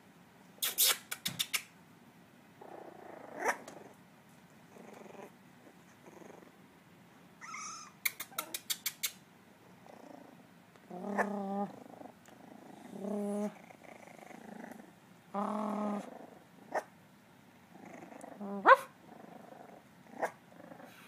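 Miniature dachshund puppies growling and trying to bark, in a string of short separate bursts with small high yaps. The loudest is a sharp one near the end.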